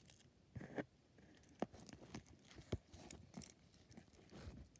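Blue slime with confetti mixed through it being pressed and kneaded by hand, giving soft, irregular wet clicks and pops.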